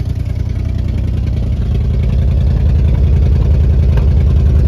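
Car engine running at idle with an even low pulse, growing gradually louder.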